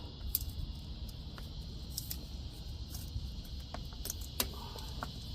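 Crickets chirring steadily in the background, with scattered light clicks from a cable and plastic trim being handled.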